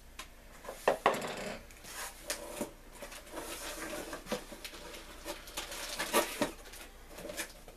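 Cardboard shipping box being opened by hand: irregular knocks, scrapes and rustles of the cardboard flaps and its packed contents.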